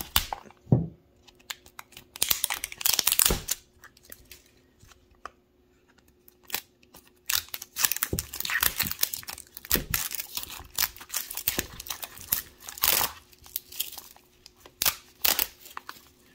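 Plastic wrapping being torn and peeled off a toy's plastic capsule, crinkling in irregular bursts, with a lull about four to seven seconds in.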